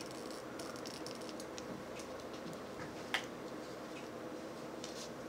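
Faint clicks and light rattles of a plastic action figure being turned in the fingers, with one sharper click about three seconds in, over a steady low hum.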